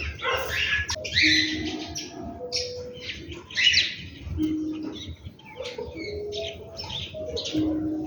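Several birds chirping in quick, high, overlapping calls, with short low held notes now and then among them.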